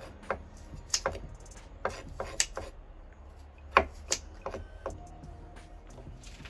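Kitchen knife slicing rose apples on a wooden cutting board. Each cut ends in a sharp knock on the board, at an uneven pace of one or two a second.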